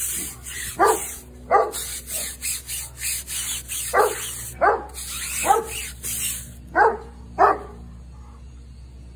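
A dog barking in short, sharp barks, about seven of them in the first seven and a half seconds. Under the barks is a hissing, scrubbing noise from the tire being cleaned, which stops about six and a half seconds in.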